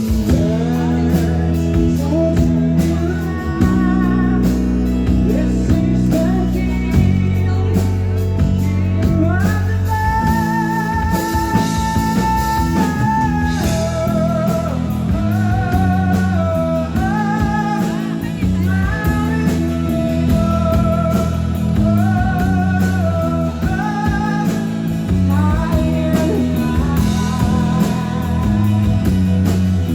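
Rock band playing live, with guitars and singing; the melody holds long notes with vibrato.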